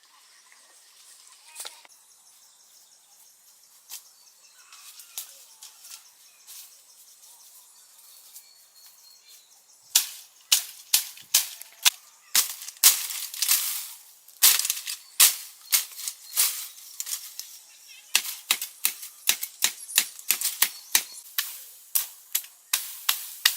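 A few faint clicks, then from about ten seconds in a rapid series of sharp knocks or strikes, roughly two a second, that keeps on.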